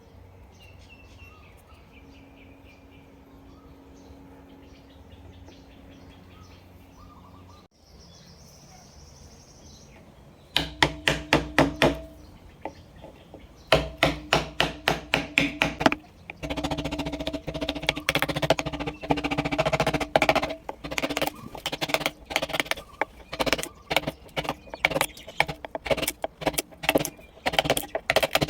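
Rapid, evenly spaced taps driving a V chisel into wood, about five or six strikes a second with a slight ringing tone, starting about ten seconds in after a quiet stretch with faint bird chirps.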